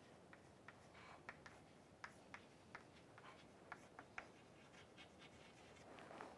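Chalk writing on a chalkboard: faint, quick taps and scratches of the chalk as letters are written, coming irregularly a few times a second.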